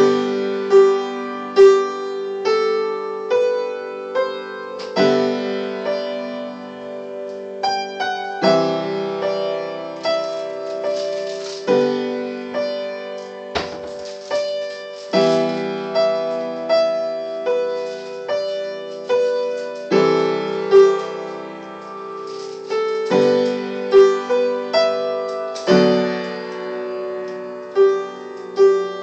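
Piano being played: a slow, continuous piece of chords and melody notes, each struck note ringing and fading before the next.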